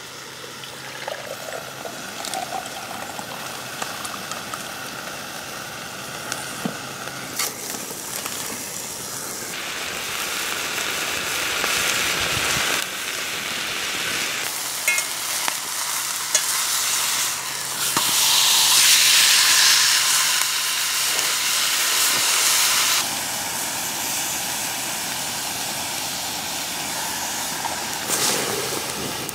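Burger frying in a cast-iron skillet over a wood campfire: a steady sizzle that grows louder in the middle stretch, with a few crackles from the fire.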